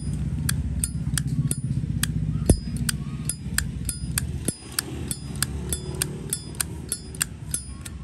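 Brass Zippo lighter lid flicked open and snapped shut over and over, about three crisp metallic clicks a second with a short bright ring: the clear, bell-like 'âm chuông' opening tone that marks a lighter with a good sound. A steady low hum runs underneath, and there is one heavier knock about two and a half seconds in.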